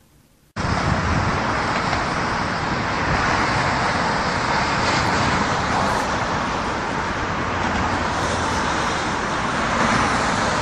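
Steady road traffic noise from cars driving on a multi-lane road, starting abruptly about half a second in.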